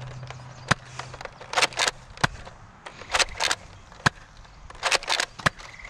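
A series of sharp, irregular clicks and knocks from a Nerf blaster being handled and worked, some coming in quick clusters near the end.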